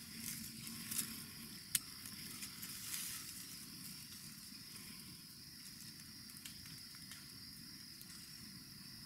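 Quiet woodland ambience: a steady high-pitched hiss, with a few faint clicks in the first seconds and one sharp click a little under two seconds in.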